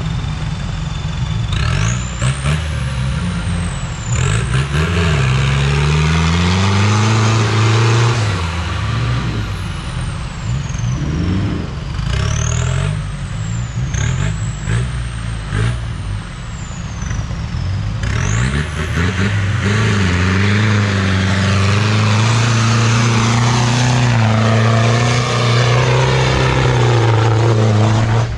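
Four-wheel-drive pickup's engine revving up and dropping back again and again as it works through deep mud ruts. A high-pitched whine rises and falls alongside the revs.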